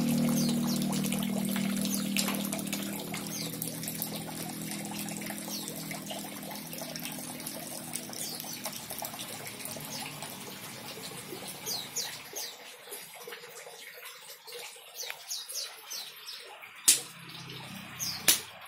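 Water trickling and splashing into a small garden fish pond, with a low hum fading out over the first dozen seconds. Small birds chirp in the second half, and two sharp clicks stand out near the end.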